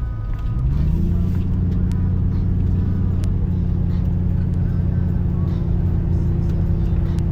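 Car engine running: the pitch rises about a second in, then holds steady at an even drone.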